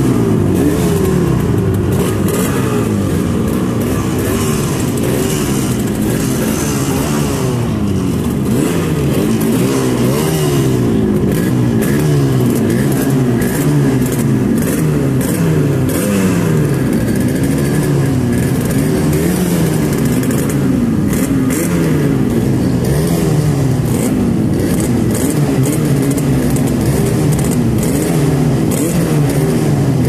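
Two Yamaha RD350 air-cooled two-stroke twins, one high-torque and one low-torque version, running together on their stands. Their engine note rises and falls again and again as the throttles are blipped around idle, with exhaust smoke showing both are running.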